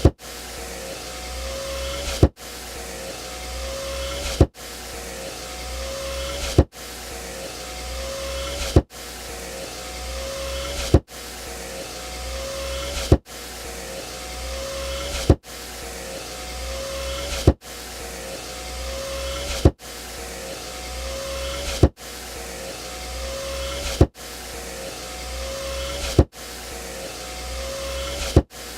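Car power window motor running, repeated about every two seconds: each run is a whine that grows louder and ends in a sharp knock, then cuts off briefly before the next.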